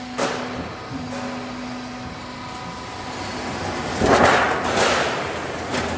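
Half-round gutter roll forming machine running, steel strip feeding through its forming rollers: a steady hum with a click just after the start. A louder noisy rush comes about four seconds in, and a smaller one near the end.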